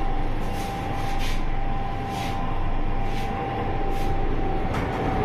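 Passenger lift car travelling downward: a steady low rumble with a constant high whine running through it, and now and then a light tick.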